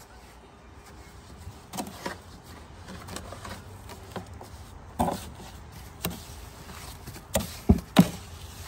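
Small hand shovel scooping wet concrete mix out of a plastic wheelbarrow tub and dropping it into a wooden post-hole form: scattered scrapes and soft thuds, with the loudest few close together near the end.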